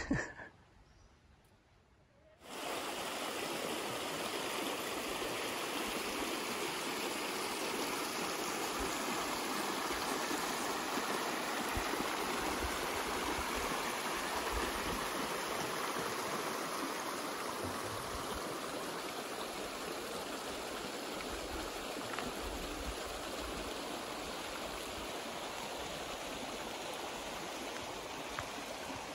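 A small creek running, a steady even rush of water that starts about two and a half seconds in, after a brief sharp sound at the very start.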